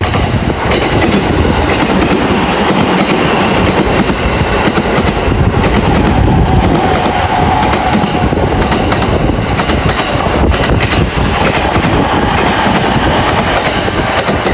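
Train wheels passing at speed over a bolted rail joint, a loud continuous clickety-clack of wheelsets striking the joint one after another, with a faint whine in the middle.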